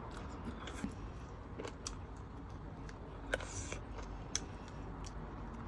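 Eating sounds: a mouthful of pea eggplants being chewed, with a few scattered sharp clicks and a brief crunchy crackle about three and a half seconds in.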